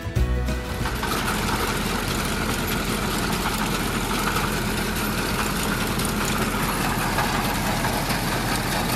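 A compact tractor running steadily while hitched to a one-row pull-type corn picker. The sound is an even mechanical drone with a constant low hum, and a snatch of music cuts off about half a second in.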